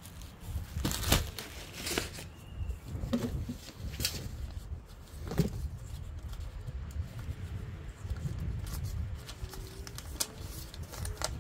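Short rustles and clicks of a plastic bag and paper being handled, scattered every second or so, over a low steady rumble.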